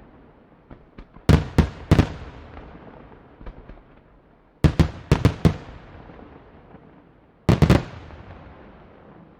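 Aerial fireworks shells bursting in volleys of loud bangs, each volley trailing off in a long echoing rumble. There are three clusters of several bangs each, about three seconds apart, with lighter pops between them.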